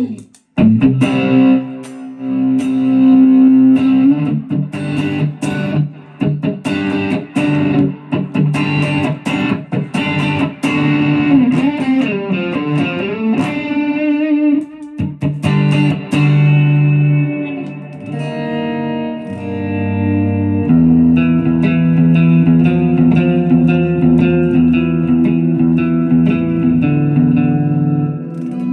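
Electric guitar played through a Neural DSP Nano Cortex amp-modelling pedal: picked single-note lines with bends and vibrato, moving to ringing sustained chords about two-thirds of the way through.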